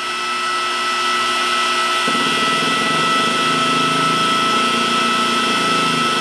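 Electric hydraulic press pump with a one-horsepower motor running with a steady whine. About two seconds in, a lower buzzing drone joins as the control valve is eased open to drive the ram slowly.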